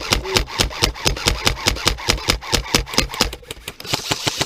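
Airsoft electric gun (AEG) firing full-auto in a long burst, about seven shots a second. It is running on a 7.4 V battery instead of 11.1 V, which the owner blames for its poor sound.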